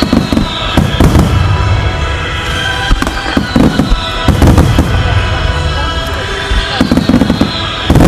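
Starmine fireworks display: rapid volleys of shell bursts banging in clusters a few seconds apart, each followed by a deep rumble, with music playing underneath.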